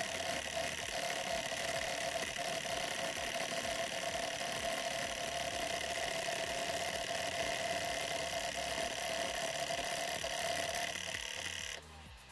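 Homemade PolarStar HPA-powered M134D minigun firing one long continuous burst: a steady mechanical buzz with a high whine running through it, cutting off abruptly near the end.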